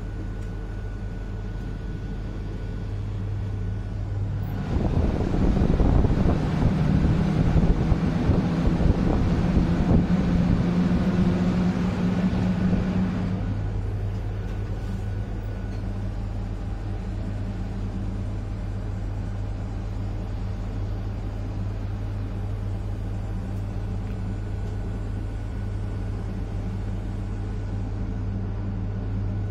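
Intercity train hauled by a V63 'Gigant' electric locomotive running, heard on board: a steady low hum. About five seconds in, a louder rushing noise with a low drone swells up for about eight seconds, then falls back to the steady hum.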